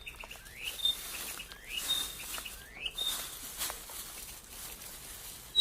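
A bird repeating a short call, a quick upward sweep ending in a brief high whistle, about once a second, stopping about three seconds in. Patches of rustling and a few faint clicks sound alongside.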